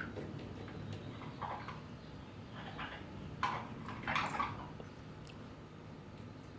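African grey parrot making a few short, quiet calls, the two clearest about halfway through.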